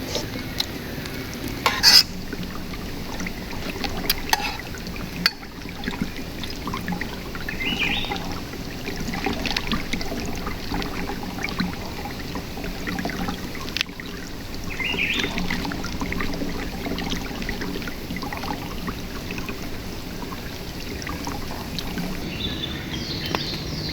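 Shallow river water trickling steadily, with scattered light clicks and knocks.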